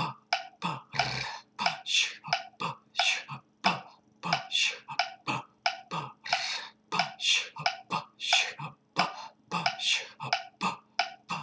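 A man voicing a harmonica chugging rhythm with his mouth alone: short, breathy, percussive syllables 'pa', 'khap', 'shch' and a whispered 'rrr', most drawn on the in-breath, repeated in a fast, even rhythm of about three or four sounds a second.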